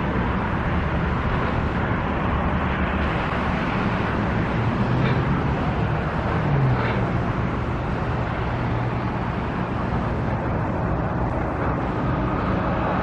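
Steady motor vehicle engine and traffic noise, with a low engine hum that shifts in pitch about six and a half seconds in.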